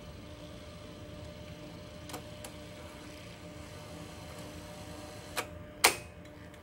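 Panasonic AU-65H MII VTR's tape-loading mechanism running as it threads the tape around the head drum: a steady motor hum with a few light clicks, then a sharp mechanical clack near the end as the threading completes.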